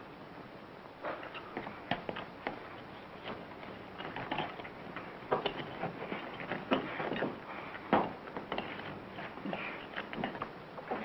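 Irregular knocks, taps and short scrapes of bricks being handled and set into a brick wall by hand, over a steady background hiss.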